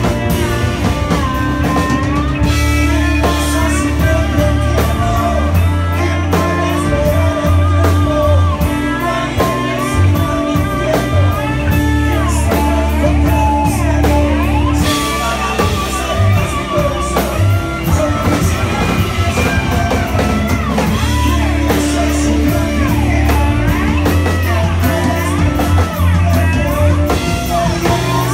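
Live rock band playing loud: a singer over electric guitar and drum kit, with a heavy low end and a steady drum beat.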